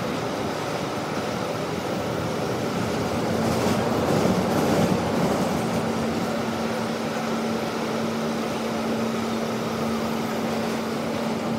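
MTA R160B subway car running, heard from inside the car: a steady rumble of wheels on rail. A steady hum at one pitch comes in about three seconds in and holds firm from about halfway, with a slight swell in loudness around four to five seconds.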